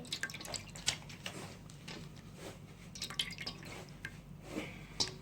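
Homemade slime being handled: scattered soft, wet clicks and squelches.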